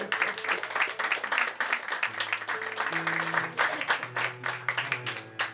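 Audience applauding, with instrumental music playing a slow line of held low notes underneath; the clapping thins out near the end.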